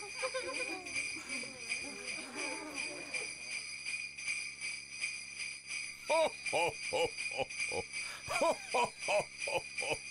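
Sleigh bells jingling steadily throughout. Wavering voice-like sounds come in the first few seconds, and in the second half a run of short rising-and-falling calls repeats about twice a second.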